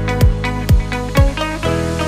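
Background music: a steady beat of bass-drum thumps about twice a second under sustained plucked, guitar-like notes.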